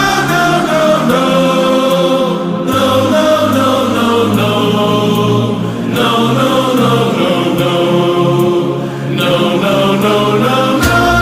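Background music: sustained choir-like singing over held chords, with the notes changing every second or two.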